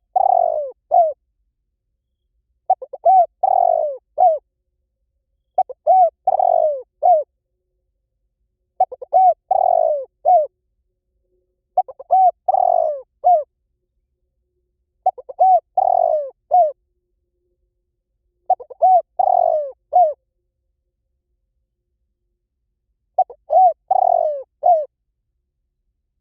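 Spotted dove cooing: the same short phrase of several soft coos repeated about every three seconds, with a slightly longer pause before the last one.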